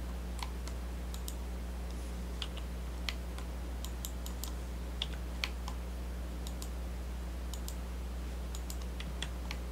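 Scattered clicks of a computer keyboard and mouse, a few a second at most, over a steady low electrical hum.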